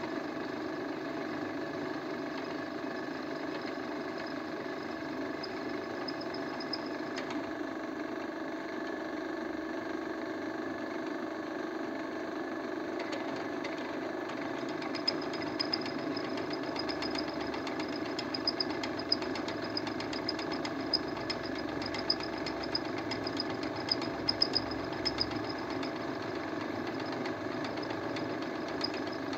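Vertical drilling machine running steadily, its motor and gear drive humming with several fixed tones, while the drill bit is fed down to cut a hole in the workpiece. From about halfway through, light sharp clicks and a faint flickering high tone come and go.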